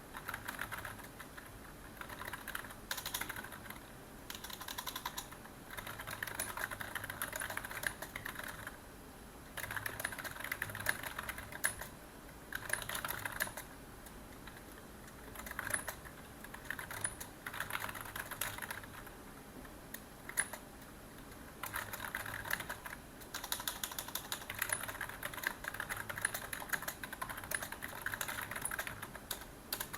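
Typing on a computer keyboard: runs of quick key clicks lasting a few seconds each, broken by short pauses.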